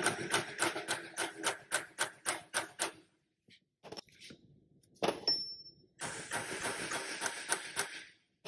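Rapid hammer taps on a steel punch held against the CV axle end, about four strikes a second, driving the axle out of a front wheel hub bearing that is bound on its splines. The taps pause for a couple of seconds midway, then resume.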